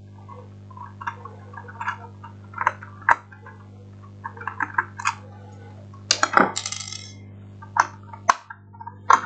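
Screwdriver clicking and scraping as small screws are backed out of the plastic battery-compartment cover on the back of a portable radio speaker. The sound is a series of small clicks and taps, with a sharper metallic clink and short rattle about six seconds in as a screw comes loose onto the table. A steady low hum runs underneath.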